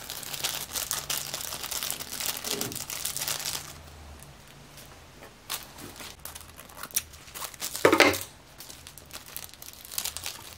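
Clear plastic wrapping crinkling and tearing as live aquarium plants are unwrapped by hand, busy for the first few seconds, then sparser rustles with one louder rustle about eight seconds in.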